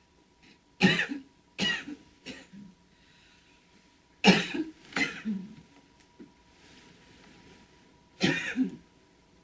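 A woman coughing in fits: a few harsh coughs close together, then two more, then a single cough near the end.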